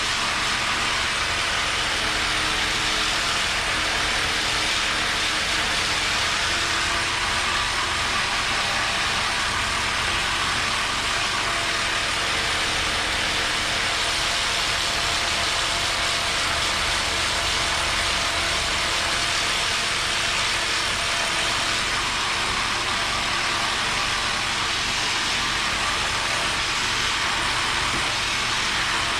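Professional motorized percussive massage machine running steadily against the shoulder and trapezius muscles, a loud, even mechanical noise with no breaks.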